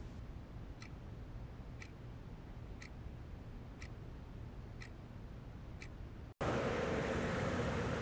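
A clock ticking, one sharp tick a second, six ticks in all. About six seconds in it cuts off suddenly to a louder, steady rushing noise.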